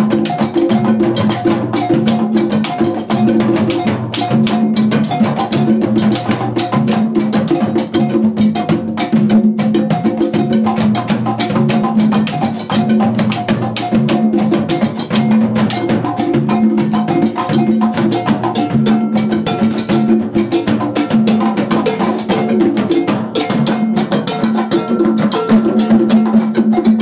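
Percussion ensemble playing an Afro-Cuban groove together: handheld bass drums, drum kit and hand drums in a dense, steady rhythm that runs without a break.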